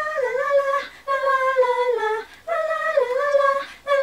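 Female voices singing unaccompanied, a cappella, in three short melodic phrases of about a second each with brief breaks between.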